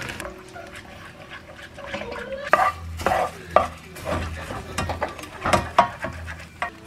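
Beaten eggs thinned with a little water sizzling softly as they scramble in a nonstick frying pan. A slotted spatula scrapes and pushes the curds around in quick, irregular strokes, starting about two and a half seconds in.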